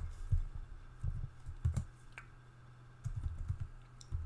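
Typing on a computer keyboard: irregular keystrokes in short runs, with a pause of about a second in the middle.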